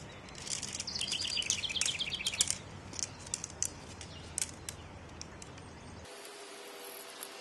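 Hubbed tent pole set's shock-corded sections clicking and rattling together as they are unfolded and snapped into place, a few sharp clicks between about three and five seconds in. A bird trills rapidly about a second in, with scattered chirps around it.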